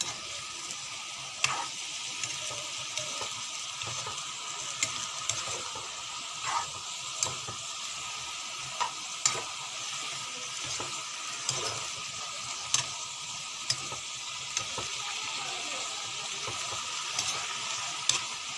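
Chopped vegetables sizzling steadily in a wok-style pan while being stir-fried, with the spatula knocking and scraping against the pan in short clicks every second or so.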